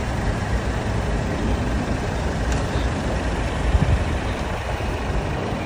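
A Volkswagen sedan's engine running with a steady low rumble as the car reverses slowly into a parallel-parking space. There is a short click about two and a half seconds in and a brief low bump near four seconds.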